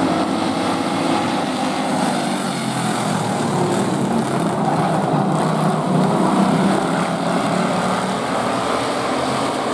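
A pack of pure stock race cars running together around the track, their engines blending into one steady drone.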